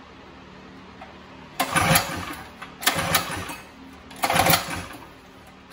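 Stage 4 Predator 212cc single-cylinder engine being pull-started with its recoil starter: three short bursts of cranking about a second and a half apart, the engine not yet catching and staying running.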